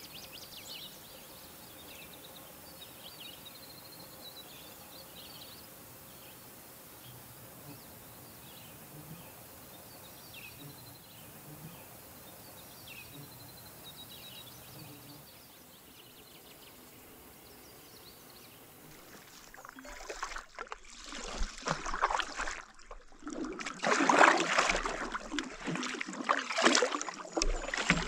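Faint scattered bird chirps over quiet outdoor ambience. About twenty seconds in, loud water rushing and splashing close to the microphone as a canoe is paddled through it, surging with each stroke.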